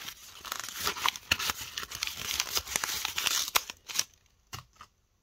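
Handling noise: fabric rustling and rubbing against a handheld camera's microphone, with many quick clicks and scrapes. It stops about four seconds in, leaving a few faint clicks.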